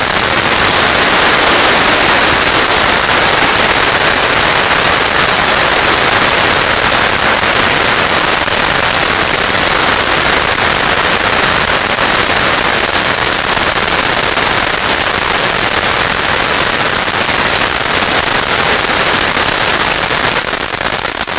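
Six ground firework fountains burning together: a loud, dense, continuous crackling hiss of sparks, reaching full strength within the first second.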